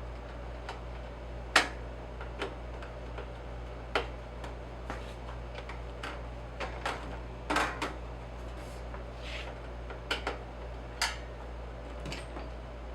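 Irregular sharp clicks and light knocks, about a dozen, spaced unevenly, the loudest about a second and a half in, over a steady low hum.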